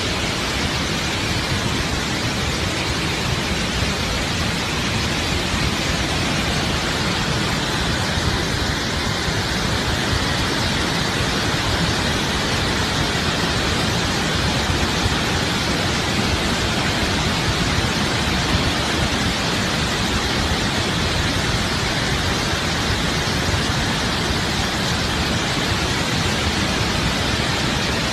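Floodwater surging out of a dam's open spillway gates: a steady, loud rushing of water and spray that does not change.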